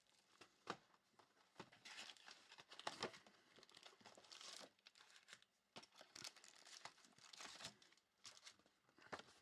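Faint rustling and crinkling of baseball cards and pack wrappers being handled, with scattered soft clicks.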